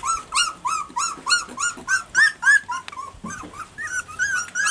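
Four-week-old cockapoo puppy whining: a run of short, high-pitched cries that rise and fall, about three a second.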